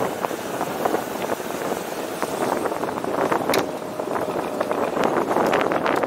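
A moving vehicle's ride noise: a steady rumble and hiss with frequent small rattles and knocks.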